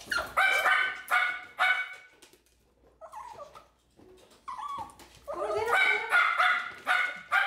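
Shih Tzu barking in short yaps: a run of several in the first two seconds, a pause, then a quicker run of yaps from about five seconds in.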